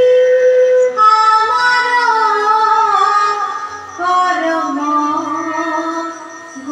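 A woman singing a devotional song with instrumental accompaniment, in long held notes that glide from pitch to pitch.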